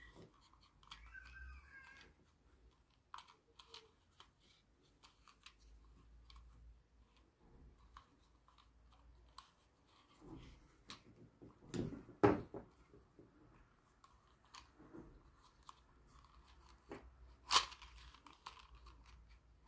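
Handling noise from a string trimmer's plastic recoil starter as its pull cord is threaded and wound onto the pulley: faint scattered clicks and rustles of cord and plastic, with two louder knocks, one about two-thirds through and one near the end.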